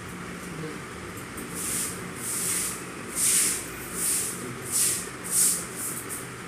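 Pen nib scratching across paper in about six short writing strokes as cursive letters are written, over a steady low hum.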